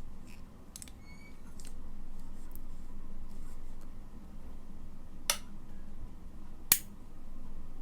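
Sharp clicks of electrical wall switches being flipped, the 2-way switches of a three-place lamp circuit being tried out. A few faint clicks come in the first two seconds, then two loud ones about a second and a half apart.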